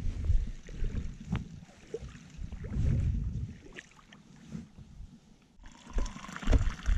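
Wind buffeting the microphone in uneven gusts. About five and a half seconds in it cuts off abruptly, and a hot drink is poured from a pump-action thermos into a steel cup in a steady trickle.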